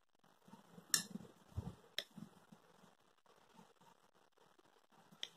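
Pencil and ruler being handled on a clipboard while drawing. There are a few sharp light clicks, about a second in, at two seconds and near the end, with a dull bump between the first two.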